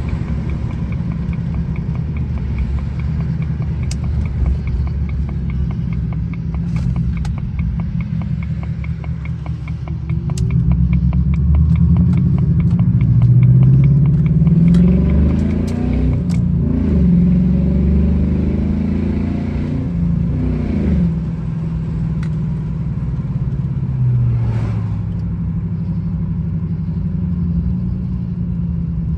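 Jaguar XJR's supercharged V8 on a test drive, heard from inside the car: steady cruising, then about ten seconds in it accelerates hard, the engine pitch rising and dropping back through several gear changes, before it settles back to a steady cruise. The engine is being checked after its cylinder-4 misfire was traced to a faulty fuel injector.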